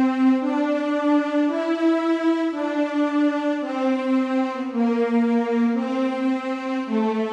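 Instrumental score music: a slow melody of long held single notes in a low register, each lasting about a second, with the pitch stepping up and then back down.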